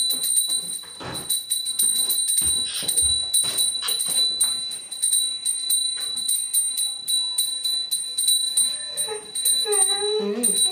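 Hand bell rung rapidly and continuously for the arati, its clapper striking several times a second and the bell holding a high ringing tone. The ringing breaks off briefly near the end, when a voice comes in.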